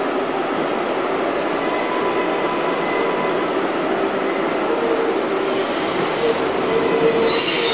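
R142A subway car running through a tunnel, heard from inside the car: a steady rumble and hiss. About halfway through, thin squealing tones from the wheels come in and grow stronger toward the end as the train takes the tight turnaround loop.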